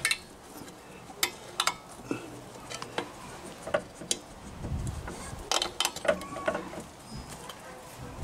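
Sparse metallic clicks and clinks of pliers gripping and working a drum brake shoe spring on a rear brake backplate, with a busier run of clicks about five to six and a half seconds in.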